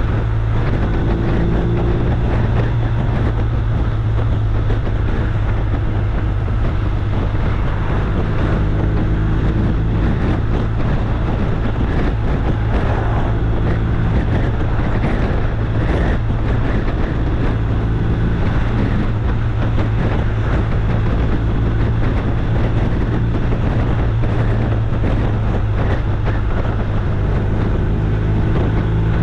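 An engine running at a steady speed: a constant low drone with a noisy rush over it, unchanging throughout.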